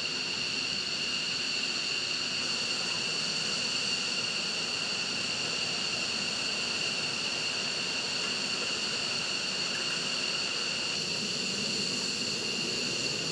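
Jet turbine engine running steadily: a constant high-pitched whine of several tones over an even rushing noise.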